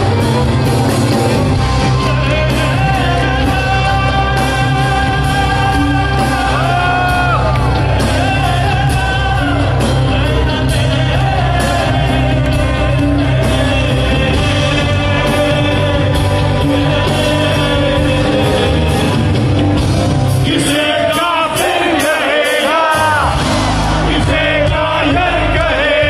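Live fusion-rock band playing with a male singer, the voice over electric guitar, bass and drums. About twenty seconds in the bass drops out, leaving the voice over a lighter accompaniment.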